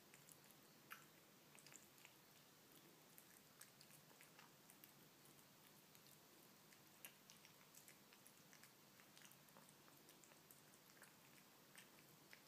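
A kitten chewing and eating wet canned cat food with chicken breast pieces: faint, irregular small clicks and smacks of eating.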